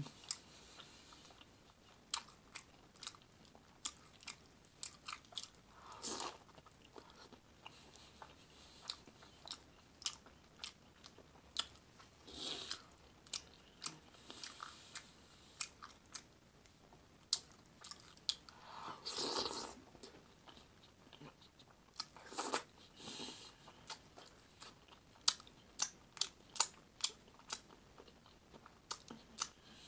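Close-miked eating: tortilla chips dipped in chili being bitten and chewed, crunching, with many sharp wet mouth clicks and lip smacks and a few longer wet mouth sounds.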